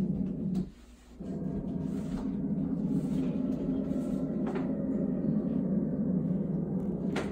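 A steady low hum, briefly dropping away about a second in, with a few faint clicks and knocks; the sharpest click comes near the end.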